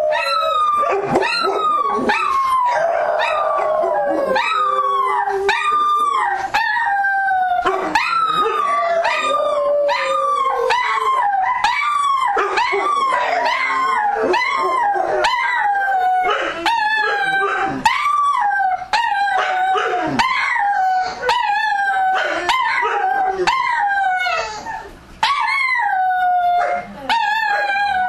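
A group of dogs howling and yelping together: many overlapping calls that rise and fall in pitch, packed close with hardly a break, easing off briefly near the end.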